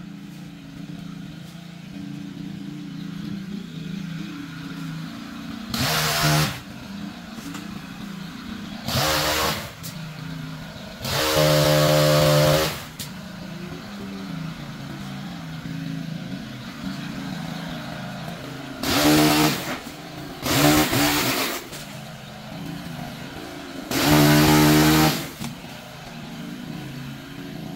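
Chainsaw idling with a steady hum, revved up six times for one to two seconds at a time as it cuts into tree limbs; the longest rev runs about eleven to thirteen seconds in.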